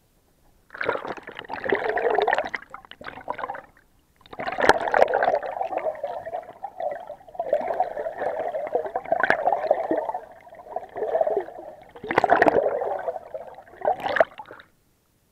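Water gurgling and sloshing around an action camera held under the surface, with bubbling and a few sharp knocks. It starts under a second in, pauses briefly about four seconds in, and stops just before the end.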